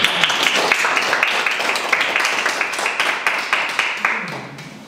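A small group applauding, many quick hand claps together, dying away near the end.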